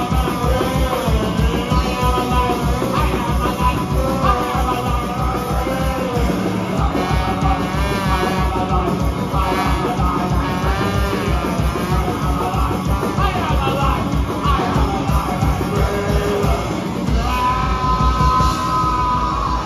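Live punk rock band playing loud: trombone, electric guitars and drums over a steady beat.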